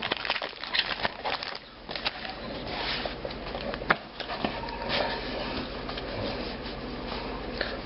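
Trading cards from a freshly opened booster pack being handled and sorted: irregular scrapes, rubs and light clicks of card stock and wrapper.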